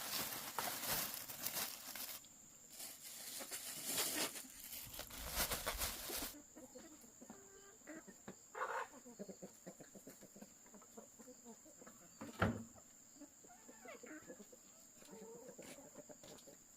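Loud rushing noise that cuts off abruptly about six seconds in. After it, chickens cluck in short scattered calls over a steady high-pitched tone, with a single sharp knock near the middle.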